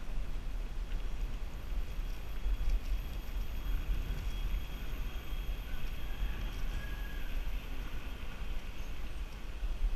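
Wind buffeting the microphone and tyre rumble from a GoPro mounted on a bicycle rolling along a paved country lane: a steady low rumble that rises and falls unevenly. Faint high tones sit in the background about four to seven seconds in.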